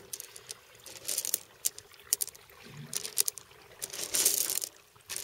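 Pea-sized gravel stones clicking and crunching against each other as hands push them around a transplanted corn seedling, in short scattered bursts, the busiest about a second in and again about four seconds in.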